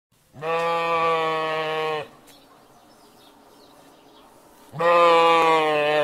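Sheep bleating: two long, drawn-out baas about a second and a half each, the second one starting a little more than two seconds after the first ends.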